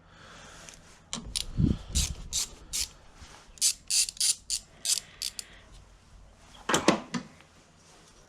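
Ratchet wrench clicking through a run of short strokes, loosening the 10 mm nut on a car battery terminal clamp, followed by one louder knock a little later.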